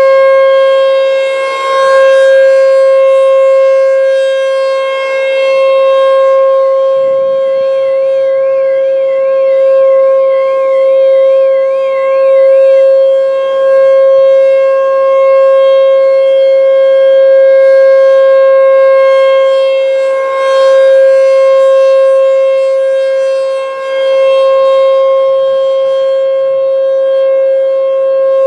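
American Signal T-128 electromechanical siren sounding a steady single tone at full volume, its loudness swelling and fading every few seconds as the head rotates. A car alarm's rapid up-and-down warble sounds over it briefly at the start and again from about six seconds in for about seven seconds, set off by the siren.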